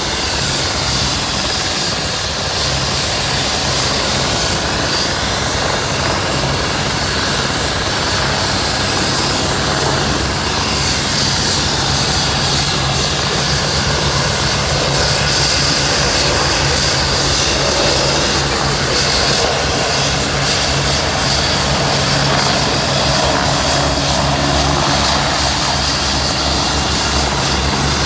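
Twin-turbine AgustaWestland AW109 helicopters running close by as one hovers over the helipad: a high steady turbine whine over the continuous beat of the main rotors.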